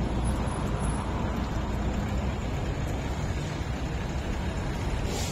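Steady street traffic noise: passing cars making an even, low rush.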